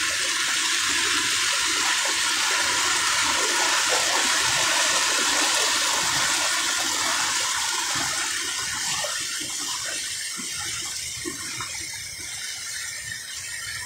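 Floodwater rushing steadily across a flooded village road, spilling past makeshift roadside barriers that are failing to hold it back. The rush eases somewhat in the second half.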